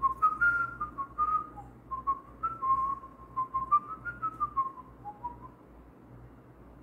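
A man whistling a short tune through pursed lips, the notes stepping up and down, stopping about five and a half seconds in.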